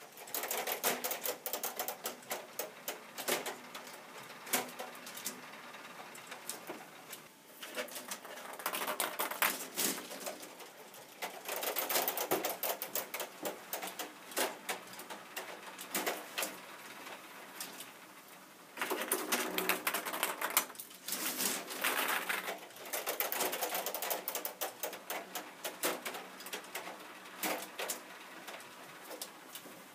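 Plastic mechanism of a K'Nex-built fruit machine clicking and rattling as it works, in several bursts of rapid clatter with quieter ticking between them.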